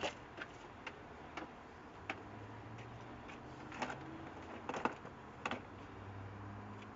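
Scattered sharp clicks and taps of metal screws and hand tools being handled, about eight of them at irregular spacing, the loudest a quick cluster about five seconds in. A faint low hum comes and goes underneath.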